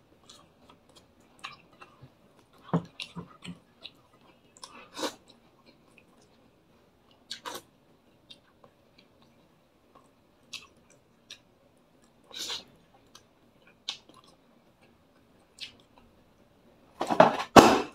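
A person chewing and biting fried fish and chicken eaten by hand, in scattered short wet smacks and clicks, with a louder, noisier burst near the end.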